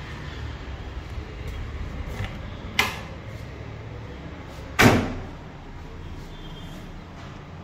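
Bathroom door being opened: a sharp knock about three seconds in, then a louder bang near five seconds, over a steady low rumble.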